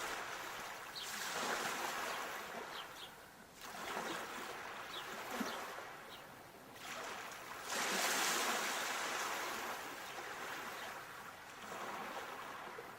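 Sea waves breaking and washing up a shore, swelling and falling back four times, the loudest swell about eight seconds in.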